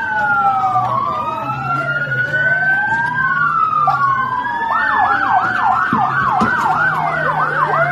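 Several police sirens sounding at once: overlapping slow wails rising and falling, with one switching to a fast yelp about five seconds in. A low engine hum runs underneath.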